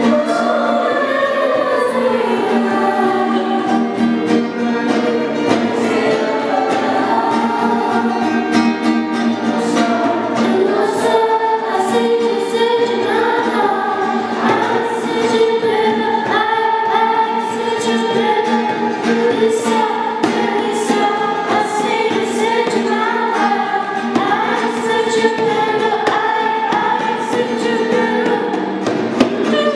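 A small group of girls singing a song together, accompanied by strummed acoustic guitar and a hand drum tapped in time.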